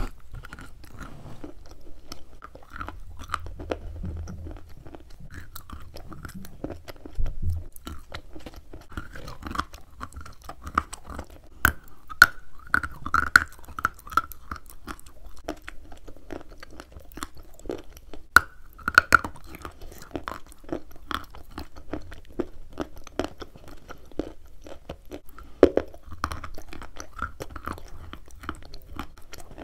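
Close-miked crunching and chewing of hard chalk and clay pieces: irregular crisp snaps and crackles as pieces are bitten and ground between the teeth, the sharpest bites about twelve and nineteen seconds in.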